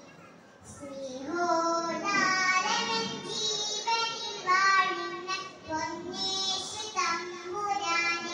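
A young girl singing solo, her voice holding long notes in short phrases, starting after a brief pause for breath.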